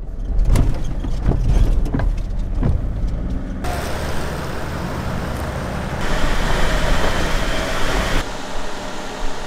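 Vehicle engine and road noise from moving cars, in several short clips that change abruptly about a third of the way in, past halfway and near the end. The first part is a heavy low rumble.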